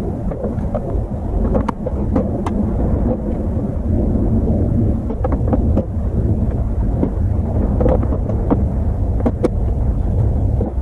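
Steady low rumble like wind buffeting the microphone, with scattered short clicks and knocks of parts being handled during the lawnmower's assembly.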